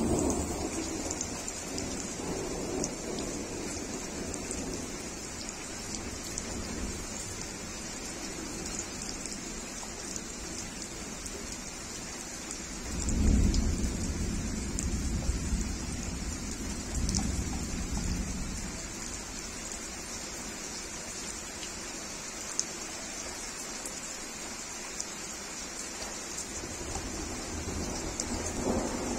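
Heavy rain falling steadily on leaves, a plant pot and wet paving, with thunder rumbling: a low roll at the start, a louder, longer one about halfway through followed by a smaller one, and another building near the end.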